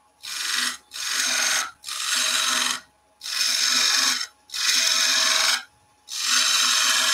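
A woodturning tool cutting into a spinning wooden staircase spindle on a lathe. It makes about six short hissing cuts, each about a second long, with brief pauses between them, as a fillet and bead are formed.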